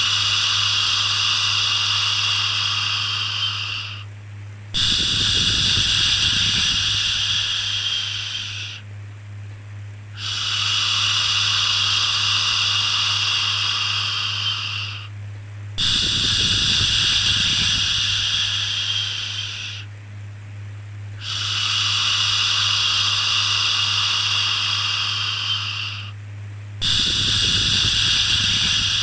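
Repeated 'shhh' shushing for soothing a baby: long hissing shushes of about four seconds each, with a short pause of about a second between them, over a steady low hum.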